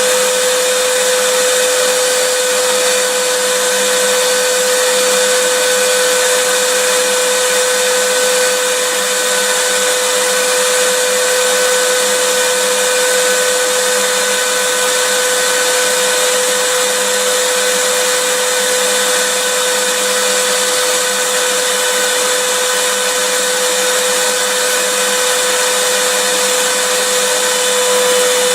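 Vacuum cleaner running steadily: an even rush of air with a constant motor tone held at one pitch, unchanging throughout.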